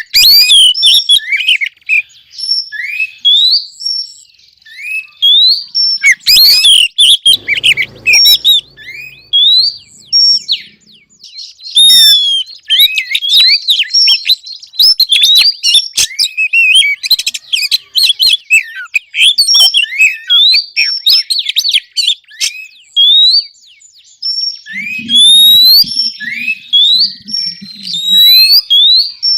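Female oriental magpie-robin (kacer) calling: quick series of short rising whistles mixed with chattering notes. Bird keepers play this call to provoke male magpie-robins into answering.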